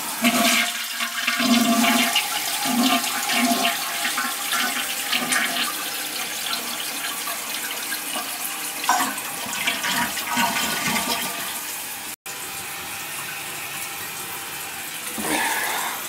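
An old toilet being flushed: a loud rush of water through the bowl, easing after a few seconds into a steady run of water as the tank refills. It is a test flush to check for a leak at the flange after a new wax ring.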